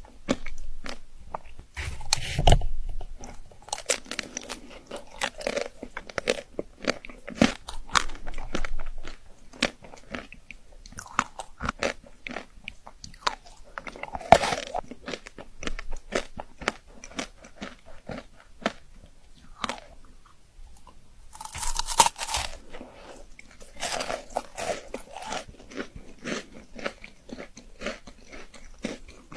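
Close-miked chocolate being bitten and chewed with a crunch, as a run of irregular clicks and crackles with louder crunching bites every few seconds.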